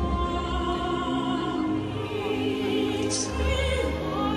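Operatic singing with an orchestra, the fountain show's music played over outdoor loudspeakers; the singer's voice holds long notes with vibrato. A short hiss cuts in briefly about three seconds in.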